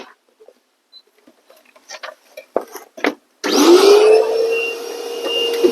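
A few light handling clicks and knocks, then about three and a half seconds in an electric blower switches on: its motor tone rises quickly and holds steady under a rushing hiss of air, blowing dust out of the opened power supply.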